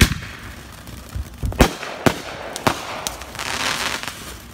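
TNT Revolution ground fountain firework spraying sparks with a steady hiss, broken by sharp bangs: a loud one at the start, three more about half a second apart between one and a half and three seconds in, then a louder stretch of hissing crackle near the end.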